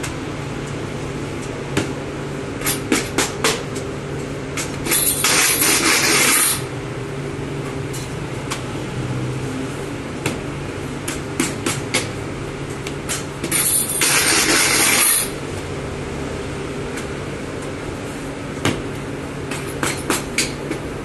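Bakery work noise: scattered knocks and clatter of tools over a steady low machine hum. Two loud hissing rushes of about a second and a half each come about a quarter and about two-thirds of the way through.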